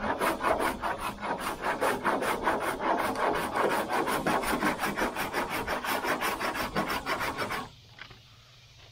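Body-filler 'cheese grater' (a Surform-type rasp) shaving down partly cured body filler on a car body panel in quick, even rasping strokes. The strokes stop suddenly about a second before the end.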